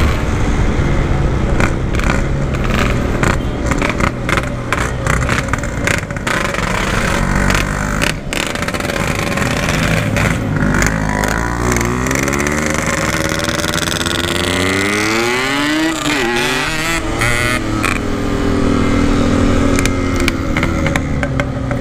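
Yamaha RX-King's single-cylinder two-stroke engine running on the move through its aftermarket stock-style exhaust, mixed with road and wind noise. The engine note falls and rises several times as the throttle changes, most plainly about two-thirds of the way in.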